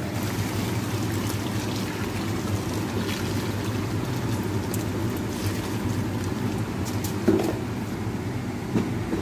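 Water being poured into a large cooking pot over pieces of chicken, a steady running-water sound.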